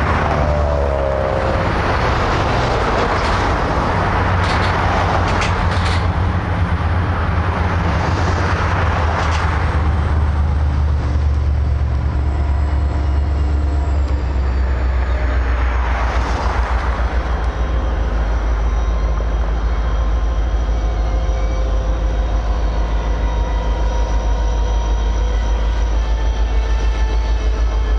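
Freight train moving over the track with a steady low rumble. Road vehicles pass by through the first ten seconds and again about two-thirds of the way in, and faint thin high tones run under the rumble in the second half.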